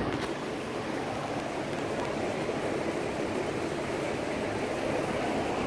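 Steady rushing air noise from an electric fan running nearby, even and unbroken.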